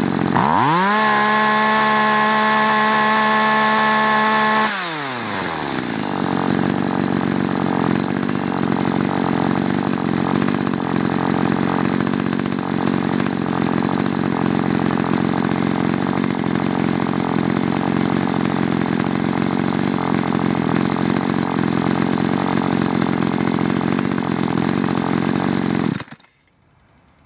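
Two-stroke chainsaw engine blipped to full throttle, about 13,000 rpm on the tachometer, held there for about four seconds, then dropping back to a steady idle of about 2,800 rpm. Near the end it is switched off and stops abruptly.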